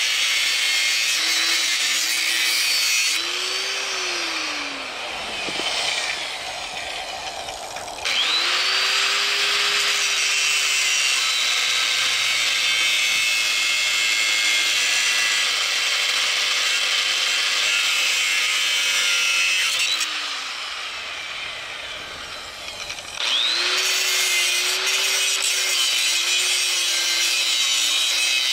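Angle grinder with a cut-off disc cutting through steel tubing: a loud grinding hiss over the motor's steady whine. Twice the motor winds down and then spins back up, first a few seconds in and again about two-thirds of the way through.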